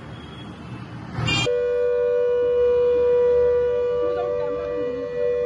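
Civil-defence warning siren sounded for a mock drill: it rises quickly to pitch about a second in, then holds one steady tone.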